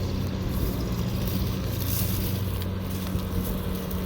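Kubota DC70 combine harvester with a 95GM header running, its diesel engine giving a steady low drone.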